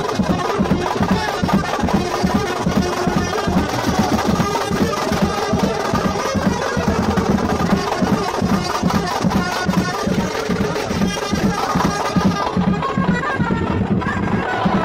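Baraat wedding band playing: brass band music led by saxophone over a steady, driving drumbeat.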